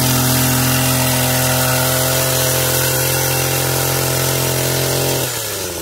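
Petrol hedge trimmer's small engine held at full throttle while trimming a shrub, a steady high drone. About five seconds in the throttle is let off and the engine drops back to idle.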